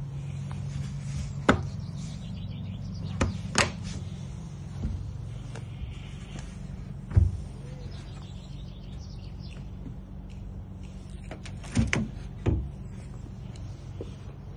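Latches clicking and the hinged plastic lid of a caravan's front drawbar storage box being opened and shut: a series of sharp clicks and knocks, the loudest a low thump about halfway through and a few knocks in quick succession near the end as the lid closes. A steady low hum runs underneath.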